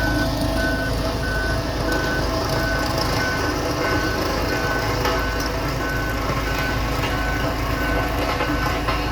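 A heavy machine's reversing alarm beeping steadily, about three beeps every two seconds, over a diesel engine running.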